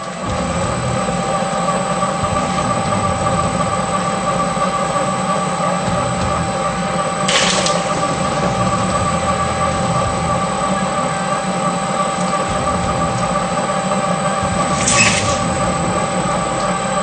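Electric shredder motor running steadily under load, with a constant whine and hum, and two short hissing bursts about seven and fifteen seconds in.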